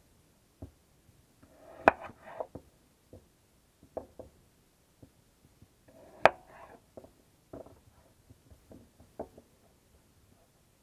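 Kitchen knife slicing raw potatoes on a wooden cutting board: irregular knocks of the blade on the board with small scraping sounds, two much louder knocks about two seconds in and again about six seconds in.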